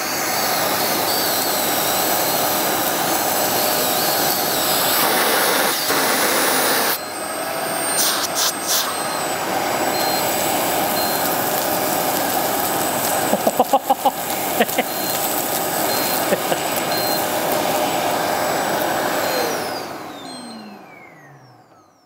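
Parkside PPWD 30 A1 workshop wet/dry vacuum, with a Festool cyclone pre-separator on top, running at full suction as it picks up wood shavings. Chips rattle through the hose twice, once a few seconds in and again around two-thirds of the way through. Near the end the motor is switched off and winds down with a falling whine.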